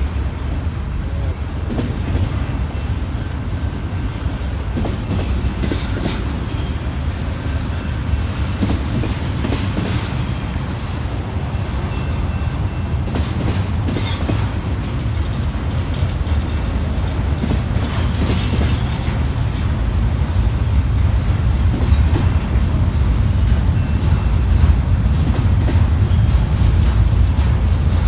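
Train rolling by with a steady low rumble and scattered sharp clicks, growing a little louder in the last third.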